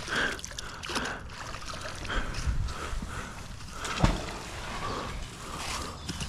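A magnet-fishing magnet on a rope is hauled up out of the canal, water dripping and sloshing off it, with rope and clothing rustle. It lands on the bank with one sharp knock about four seconds in.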